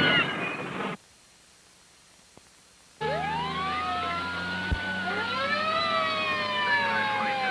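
A loud sound dies away in the first second, followed by about two seconds of near silence. Then, about three seconds in, several emergency-vehicle sirens come in suddenly and wail together, their pitches rising and falling out of step, over a steady low hum.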